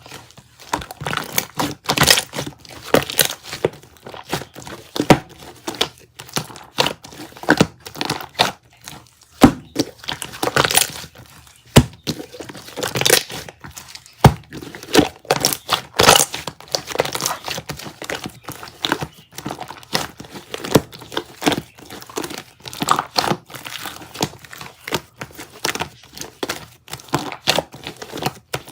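Slime being squeezed, folded and stretched by hand, giving a steady stream of irregular crackling clicks and pops.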